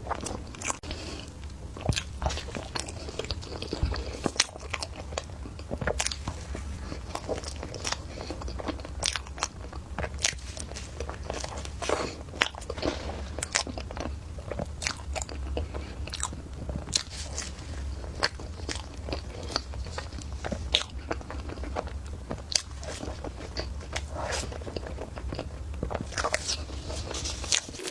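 Close-miked eating: crunchy bites and chewing, with dozens of sharp, irregular crunches over a low steady hum.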